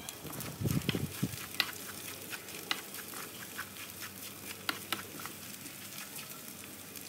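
Ground chili-shallot spice paste frying in oil in a nonstick wok, being sautéed until fragrant: a steady sizzle with scattered sharp crackles. A spatula scrapes and stirs through the paste, most heavily about a second in.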